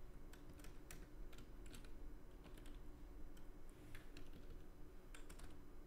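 Faint, irregular keystrokes on a computer keyboard, a few scattered clicks at a time, as an equation is typed in.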